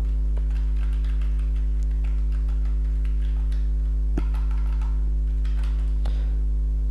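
Steady electrical mains hum: a low buzz with an even stack of overtones that does not change. A few faint computer-keyboard clicks come through it as a domain name is typed.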